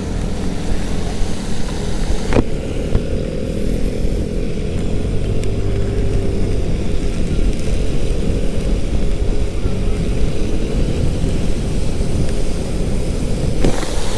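Wind and road noise rushing over a helmet-mounted camera microphone while riding a Yamaha Aerox 155 scooter through rain, its engine running faintly underneath. Two sharp knocks cut through, about two seconds in and near the end.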